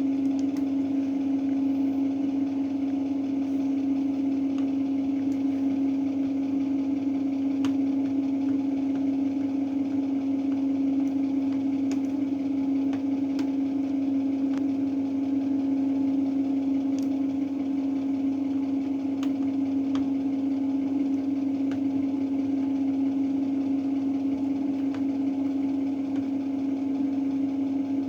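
Beko WRE7532XO washing machine running with a steady hum, one strong low tone held level throughout, with a few faint ticks.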